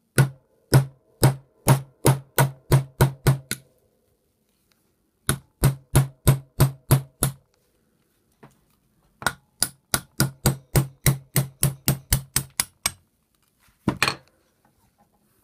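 Hammer striking a pin punch to drive a roll pin out of the tapper's steel spindle: three runs of rapid metallic taps, about three to four a second, each strike ringing briefly, with a couple of last blows near the end.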